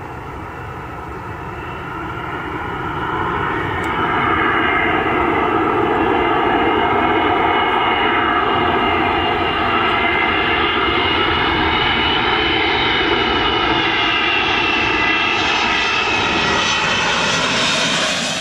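Boeing 777 on short final passing low overhead: its twin turbofan engines make a loud, steady rushing drone with a whine of several steady tones, growing louder over the first few seconds as it approaches.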